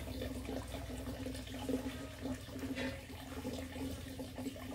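Coconut water running out of a cracked young coconut (buko) as it is drained.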